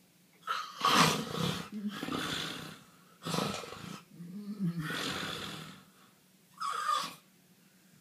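Three loud, rasping, breathy vocal sounds: two long ones of about two and a half seconds each, then a short one near the end.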